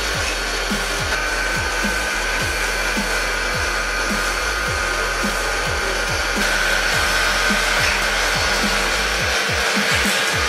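Electric log-rounding machine running with a steady whir as its motor-driven cutter head planes a log round, with a held high tone. Background music with a regular low beat plays over it.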